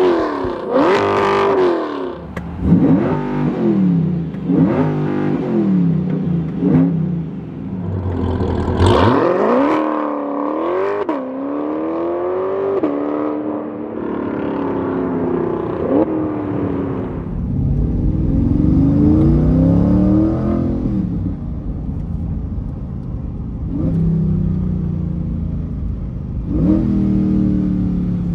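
Chevrolet Corvette C8 Stingray's 6.2-litre LT2 V8 through a loud aftermarket exhaust. It is revved sharply several times, then accelerates hard with rising pulls through the gears.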